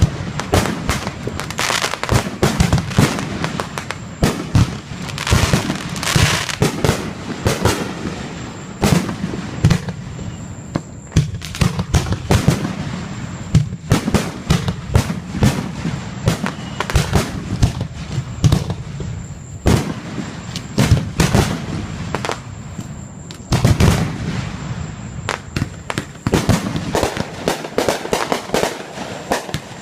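Fireworks going off: a dense string of sharp bangs and crackling, with clusters of louder booms every few seconds.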